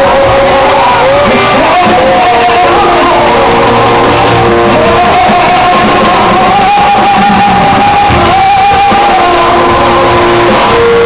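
A live song: a woman's voice singing long held, sustained notes over guitar and band accompaniment.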